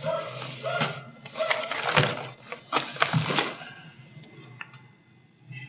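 Hard-plastic miniature sprues clattering and bubble-wrap packing crinkling as they are handled and lifted out of a box, in a few crackly bursts that die down after about three seconds.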